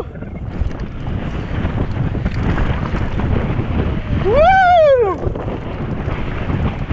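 Wind buffeting the camera microphone and tyres rumbling over a dirt trail on a mountain-bike descent. About four seconds in comes a brief high-pitched sound that rises and then falls in pitch.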